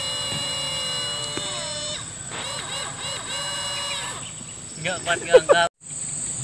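Small electric motor and propeller of a foam RC plane whining steadily, then dropping in pitch and stopping about two seconds in. A few loud, short vocal sounds follow near the end.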